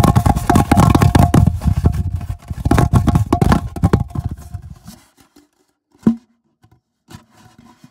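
Handling noise: rubbing, scraping and knocking right against the phone's microphone, dying away after about five seconds, then a single sharp thump about six seconds in.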